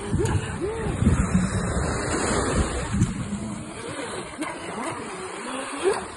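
Electric motor of a Geico 17 RC speedboat on a 3S battery, its pitch rising and falling again and again as it runs through the surf, over the wash of small breaking waves.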